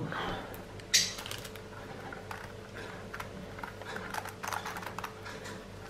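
Plastic pieces of a DaYan Gem V2 twisty puzzle clicking as it is handled and turned: one sharper click about a second in, then scattered soft clicks.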